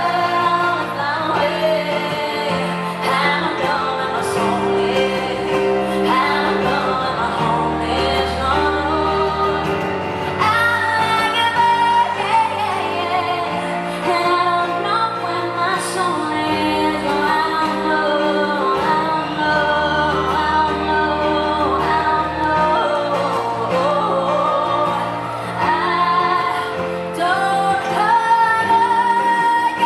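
Live pop music: a female lead vocal sings a melody over a full band with steady bass and chords.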